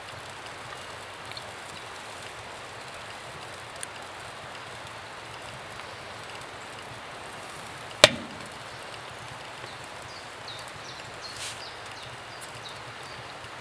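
Steady crackling hiss of outdoor fire cooking, with small ticks and one sharp knock about eight seconds in.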